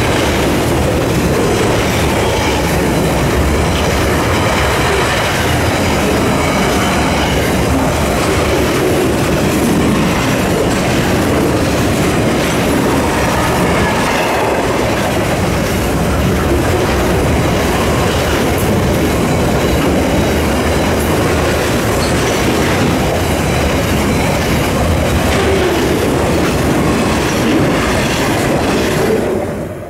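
Container wagons of a long freight train rolling past close by, with a steady rumble and rhythmic clicking from the wheels on the rails. At times there is a faint wheel squeal. The sound drops away at the very end.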